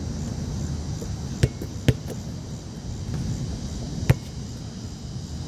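A basketball striking hard surfaces of an outdoor court three times, sharp thuds about 1.5 s in, again half a second later, and once more about 4 s in, over a steady background hiss.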